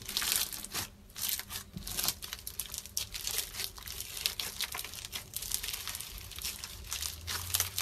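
Slime being kneaded by hand: a dense, irregular run of sticky clicks and crackles that does not let up.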